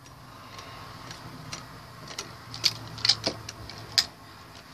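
Two Beyblade spinning tops, Phantom Orion and a rubber-edged L-Drago, whirring against each other in a plastic bowl, with a run of sharp clacks as they collide. The loudest clacks come about two and a half, three and four seconds in. The rubber is taken by the players to be absorbing Phantom Orion's spin.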